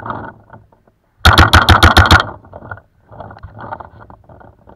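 Paintball marker firing a rapid burst of about eight shots in about a second.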